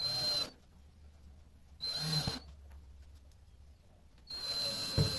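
Cordless drill/driver with a Phillips bit driving screws into half-inch plywood panels. It runs in three bursts of a steady high whine: two short ones and a longer one near the end, with a couple of low knocks as the screw seats.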